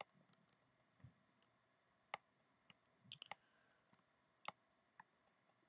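Faint, scattered clicks of a computer mouse, a dozen or so at irregular intervals, over near silence.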